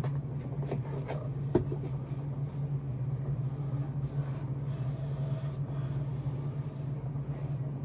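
A steady low hum, with a few faint clicks early on and soft rubbing rustles as the drawer is wiped clean.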